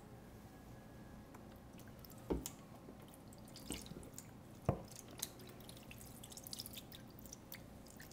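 Chicken broth poured from a carton into a metal roasting pan: faint dripping and splashing. Two sharp knocks stand out, about two and a half seconds in and again near the five-second mark.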